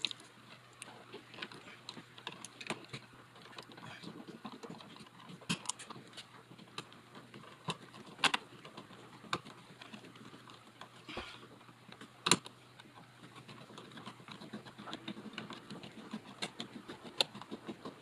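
Screwdriver working the mounting screws of wall switches in a switch box: scattered small clicks and ticks of metal and plastic, with two sharper knocks about 8 and 12 seconds in.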